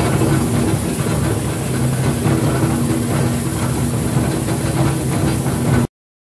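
Sweed PCR1034 scrap prechopper running: a loud, steady mechanical drone with a low hum, cut off abruptly near the end.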